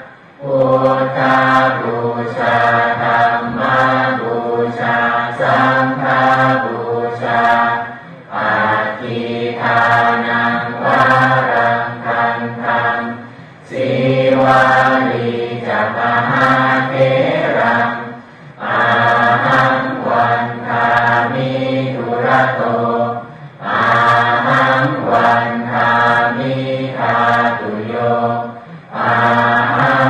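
Thai Buddhist chanting in Pali: a devotional verse recited in a steady rhythm, phrase after phrase, with short pauses for breath about every five seconds.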